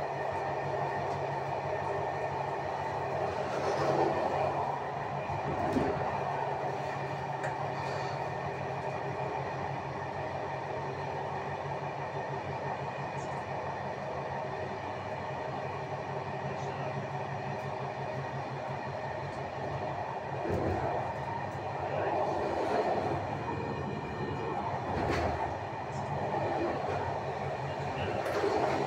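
Passenger train running on the rails, heard from its last carriage: a steady rolling noise with a constant hum, and a few louder knocks from the wheels over rail joints or points.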